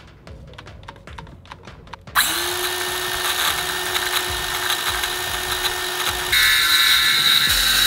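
Ryobi cordless circular saw cutting a sheet of King StarBoard marine polymer (HDPE). It starts about two seconds in and runs steadily with a constant motor whine, then gets louder and changes tone about six seconds in as the cut goes on. Faint regular clicking comes before it.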